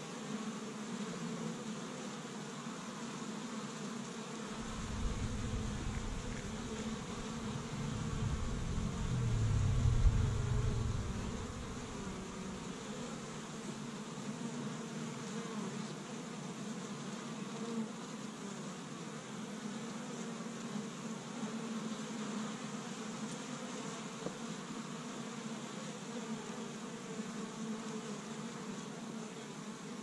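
Many honey bees buzzing steadily at the hive entrance as they fly in and out. A low rumble swells from about five seconds in, is loudest around ten seconds, and fades by about twelve.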